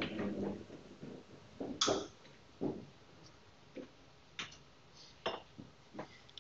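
Scattered single clicks, about one every half second to a second, from keys being pressed on a computer keyboard, with a short low sound at the very start.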